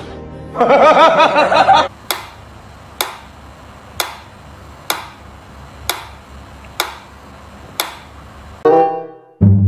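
Mechanical pendulum metronome ticking about once a second, seven sharp ticks in a row. Before the ticking comes a short, loud, wavering voice-like sound, and a pitched musical sound starts near the end.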